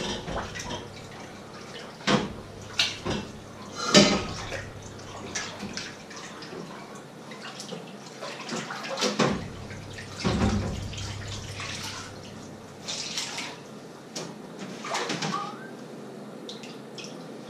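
Washing dishes by hand at a kitchen sink: water splashing steadily, with pots and utensils clattering against each other and the sink every few seconds, loudest about four seconds in.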